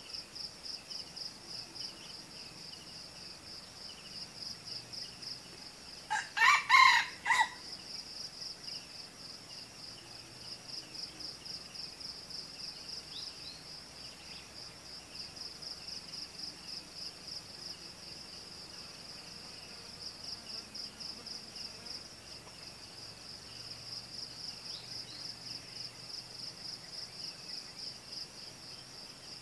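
A red junglefowl rooster crows once, a short, loud crow about six seconds in. Under it runs a steady, high, fast-pulsing insect drone.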